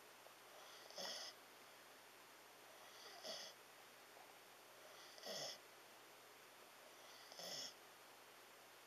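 Siberian husky snoring in its sleep: four quiet, short snores about two seconds apart.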